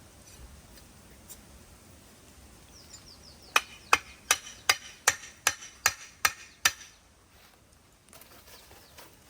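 A run of about nine sharp, ringing strikes, about three a second, like a hammer or blade hitting hard material, starting a few seconds in and stopping after about three seconds.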